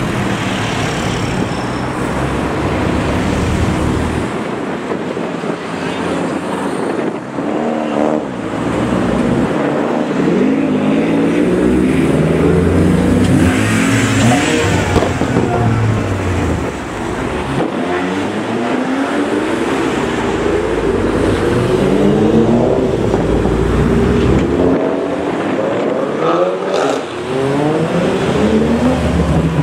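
A stream of cars passing close by one after another. Their engines rise in pitch as they accelerate, again and again, over constant tyre and engine noise.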